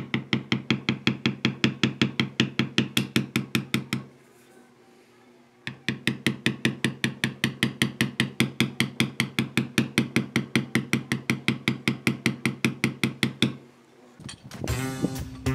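Rapid, even mallet taps on a leather beveler, about seven a second, as it is walked along the cut lines of a leather knife sheath; the tapping pauses for about a second and a half and then resumes. Guitar music comes in near the end.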